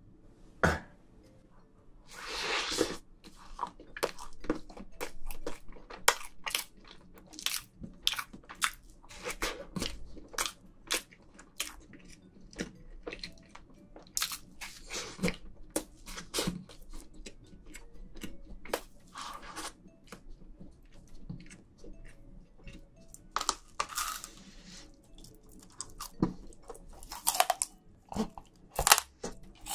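Close-miked chewing with many sharp crunches and crackles as an edible cake shaped like a green-and-yellow kitchen scrub sponge is bitten and chewed. There is a longer rustling stretch about two seconds in, and the crunches come thicker near the end.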